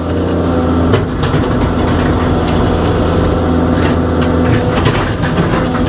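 Excavator's diesel engine running steadily while it digs, heard from inside the operator's cab.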